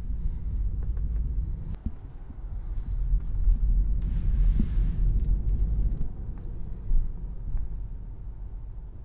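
Low road and tyre rumble inside the cabin of a moving 2021 Tesla Model 3, swelling from about three to six seconds in, with a brief hiss around four seconds in.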